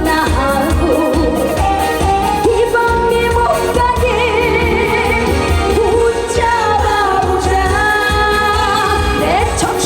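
Female trot singer singing live over an amplified backing band, with wavering vibrato on long held notes and a steady bass underneath.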